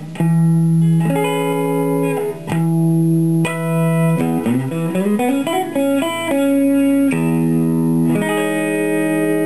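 Electric guitar chords from a 1982 Fender Stratocaster on its middle single-coil pickup, played through a silverface Fender Princeton Reverb amp with the vibe pedal bypassed, a dry tone with no vibe effect. Several strummed chords, a quick run of single notes in the middle, then chords ringing out.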